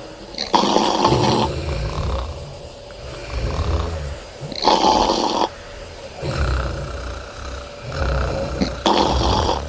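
Women snoring loudly: three strong snores about four seconds apart, each lasting about a second, with softer, deeper snores in between.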